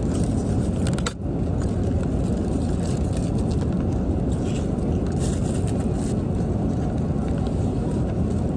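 Steady low cabin drone of a Boeing 777 airliner in flight, dipping briefly about a second in, with the aluminium foil cover of a meal tray crinkling and rustling at times.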